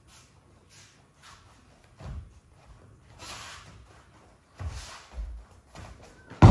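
Bare feet stepping and shuffling on judo mats, with a few dull thuds and the rustle of judo jackets as two judoka close in and grip. A loud, heavy thud right at the end is the partner being thrown and landing on the mat in a breakfall.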